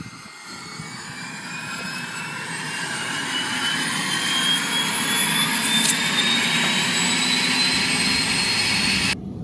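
Single-engine turboprop light aircraft running, its turbine whine rising slowly in pitch as the sound grows steadily louder.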